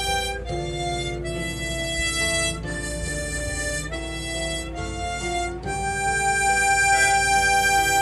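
Instrumental background music: a slow melody of long held notes on a reed or wind instrument, changing pitch every second or so, over a steady low accompaniment.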